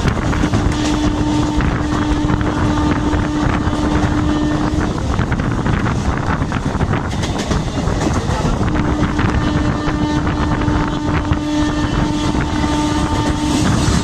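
Electric multiple unit (EMU) local train running at speed, heard from its open doorway: wind buffeting the microphone over a steady rumble of wheels on rail. Two long, steady blasts of the train's horn sound over it, the first for about four and a half seconds just after the start, the second from about nine seconds in.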